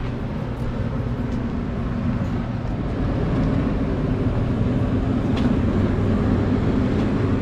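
Restaurant kitchen exhaust fan running, a steady low hum with rushing air that grows louder about three seconds in.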